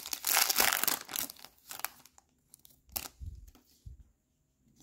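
Foil wrapper of a trading-card pack being torn open and crinkling loudly for about the first second and a half. It is followed by a few soft knocks as the stack of cards is handled.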